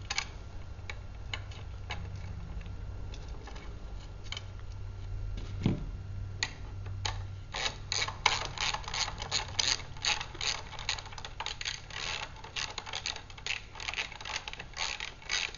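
Ratchet socket wrench clicking in quick runs as a quarter-inch bolt is driven into the end of the sweeper's square steel handle shaft. It starts with a few scattered light metal clicks as the bolt and washer go in, and the dense ratcheting begins about six seconds in.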